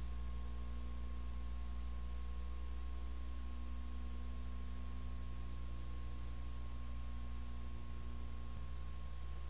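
Steady electrical hum with a thin high tone and hiss: the noise floor of a home-movie film transfer, with no other sound on it.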